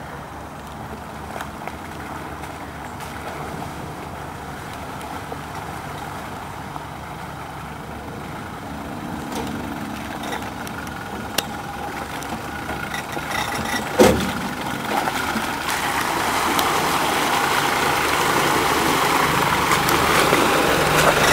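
Land Rover Defender engine running under way off-road, growing louder over the last several seconds as a rushing noise builds. A single sharp knock comes about two-thirds of the way through.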